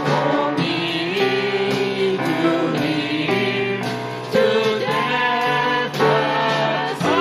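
Worship song: voices singing together over live band accompaniment.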